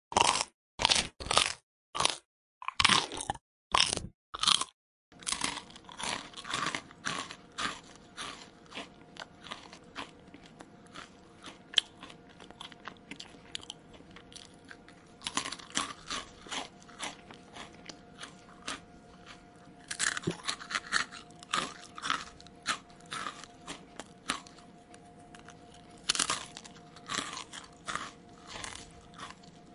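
Close-miked mouth chewing of something crunchy, in loud separate crunches with dead silence between them. About five seconds in it changes to a different take of fast, continuous crunchy chewing over a faint steady hum.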